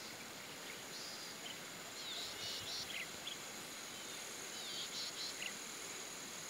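Insects buzzing steadily at a high pitch over a faint outdoor hiss. A bird gives short chirping calls about two seconds in and again near five seconds.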